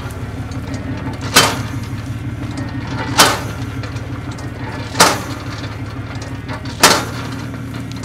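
Feed truck's engine idling steadily, with a short sharp whoosh repeating about every two seconds.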